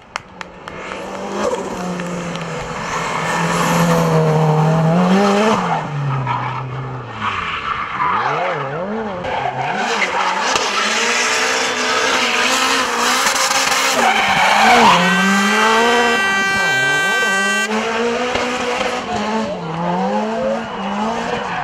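Hill-climb race car's engine revving hard, its pitch climbing and dropping again and again through gear changes and lifts, with tyres squealing and skidding as it slides through the bends, leaving tyre smoke. A separate steady, held tone sounds for about three seconds past the middle.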